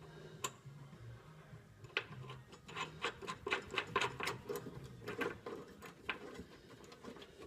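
Hand ratchet wrench clicking rapidly, about four to five clicks a second for several seconds, as a bolt is run in on a truck's running-board mounting bracket.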